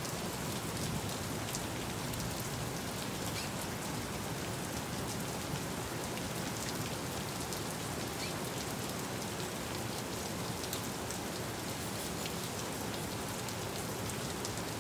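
Steady monsoon downpour: rain falling on hard surfaces, with scattered individual drops ticking close by.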